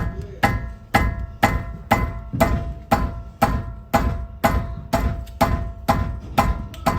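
Hand hammer striking a steel wrench to break loose a brake caliper bolt, about two evenly spaced blows a second, each with a short metallic ring.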